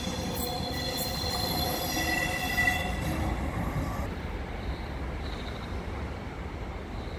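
Train wheels squealing on the rails over a low rumble. The squeal fades out about four seconds in, leaving the quieter rumble.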